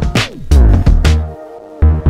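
Background music: an electronic track with heavy bass and a drum beat, the bass dropping out briefly near the end.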